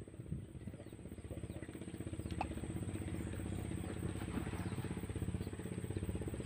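Small single-cylinder boat engine on a narrow wooden river boat running steadily with a fast, even putter, growing louder over the first couple of seconds as the boat comes closer.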